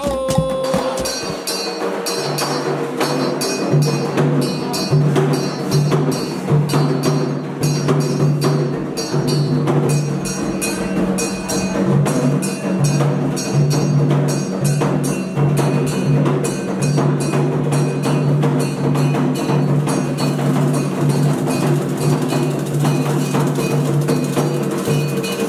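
Candomblé atabaque drums beaten with sticks in a dense, steady rhythm, with a metal bell ringing over them.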